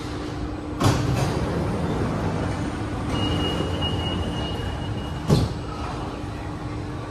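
Sliding passenger doors of a CT251 metro train at a station stop. They slide open with a knock about a second in. A steady high beep then sounds for about two seconds as the door-closing warning, and the doors shut with a thud at its end. A steady hum of the stopped train runs underneath.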